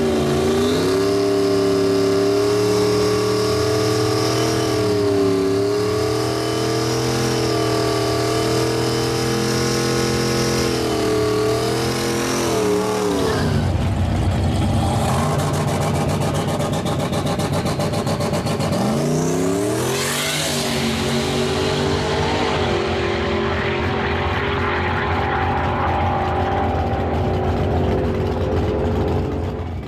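Turbocharged LS3 V8 in a drag-racing Camaro running hard at high revs, steady for about twelve seconds, then dropping suddenly. Around twenty seconds in its pitch climbs sharply as it accelerates, then it holds a steady pitch near the end.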